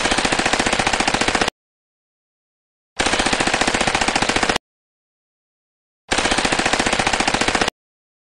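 Uzi submachine gun firing fully automatic: three bursts of about a second and a half each, about ten rapid shots a second, with total silence between bursts.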